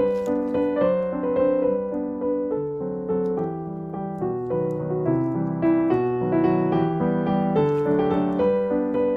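Background piano music: a gentle melody over a moving bass line.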